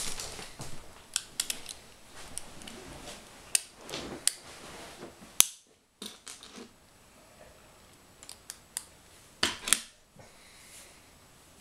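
Small plastic Lego pieces clicking and tapping as they are picked up and handled, in scattered sharp clicks, with a louder cluster near the end.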